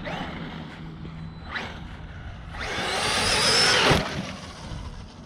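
Battery-powered Traxxas RC car accelerating hard across wet grass and mud: a rising electric motor whine over the tyres churning, loudest about three seconds in and cutting off suddenly a second later.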